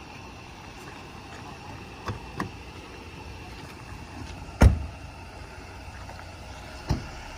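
Car doors shutting: a loud slam about halfway through and a lighter one near the end, with a couple of faint clicks before, over a steady background hum of vehicles.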